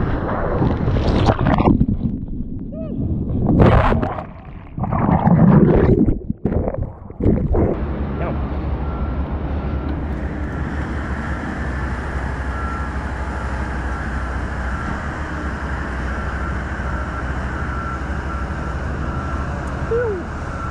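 Water rushing and splashing around a surfboard riding a wave, with gusts of wind buffeting the action camera's microphone in irregular surges. About eight seconds in it changes to a steady rush of wind noise with a low hum as the camera moves along a beachfront path.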